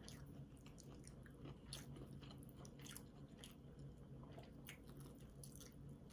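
Faint eating sounds: two people chewing and biting food, with scattered small mouth clicks and light crunches, over a faint steady low hum.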